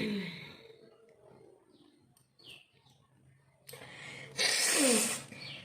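A woman blowing her nose hard: a loud rushing blast of air about four and a half seconds in, lasting just under a second and ending in a falling voiced grunt.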